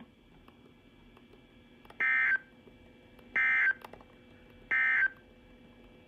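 NOAA Weather Radio end-of-message data tones from a Sangean weather alert radio's speaker: three short, identical bursts of warbling digital tone about a second and a half apart. They mark the end of the severe thunderstorm warning broadcast.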